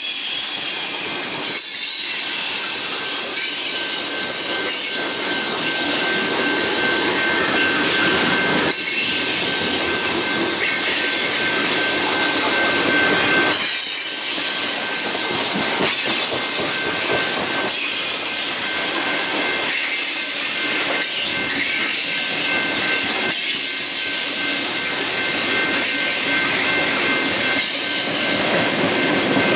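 Tank cars of a CSX freight train rolling past close by: steel wheels running on the rails with a steady high wheel squeal over the rumble and clatter of the cars.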